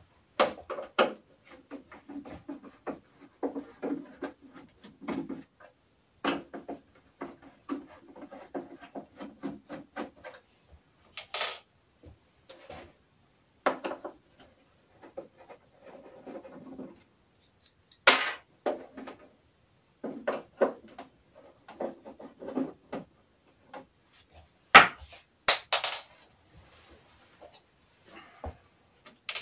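Handling noise from taking apart an iMac G3's plastic case by hand and with a tool: irregular clicks, knocks and scraping of plastic, with a few sharper, louder clicks late on.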